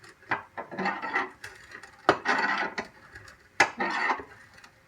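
Compact car jack being cranked up by hand, lifting the car: with each stroke of the crank a sharp click, then a grinding scrape, three strokes about a second and a half apart.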